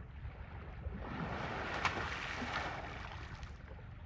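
Water splashing and sloshing as Asian elephants move in a pool, swelling for a couple of seconds in the middle, with one sharp click near the middle. Under it runs a low rumble of wind on the microphone.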